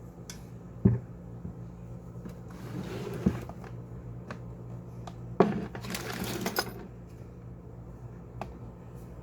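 Handling noises as the rotator and its packaging are unboxed: three sharp knocks and two short spells of rustling, over a steady low hum.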